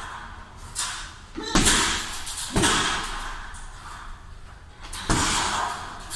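Strikes landing on a hanging heavy punching bag: several heavy thuds at uneven intervals, each echoing in a large hall.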